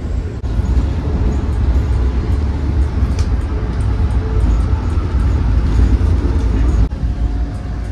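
Steady low rumble of a moving Amtrak passenger train heard from inside the coach, its wheels running on the rails with a few light clicks. The sound breaks off for an instant about half a second in and again near the end.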